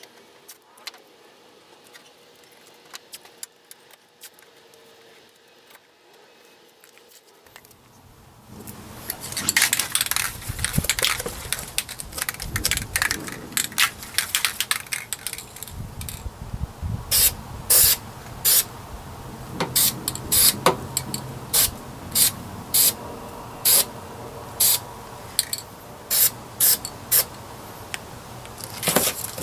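Aerosol spray paint can spraying onto the grill frame, first in dense spurts and then in a run of short bursts about once a second, starting about eight seconds in after a quiet opening.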